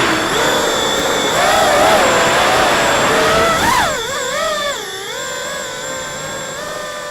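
FPV quadcopter's brushless motors and propellers whining, the pitch swooping up and down with the throttle, then holding steadier and slowly dropping near the end.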